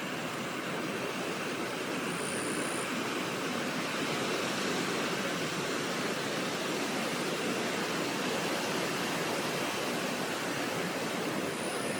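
Steady rushing of flowing river water, with two brief high-pitched buzzes: one about a second in and one near the end.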